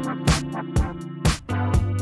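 Background music: an electronic track with a drum beat about twice a second over a held bass line and chords.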